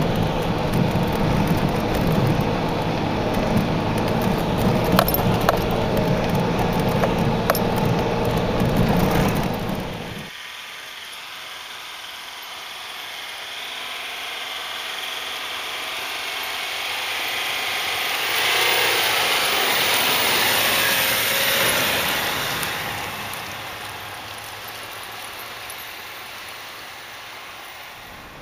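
Toyota Land Cruiser HDJ100's straight-six diesel running under way, heard from inside the cab with steady road noise. About ten seconds in, the sound cuts to an outside recording of another 4x4 driving through deep snow. Its engine and the snow under its tyres grow louder, peak, then fade.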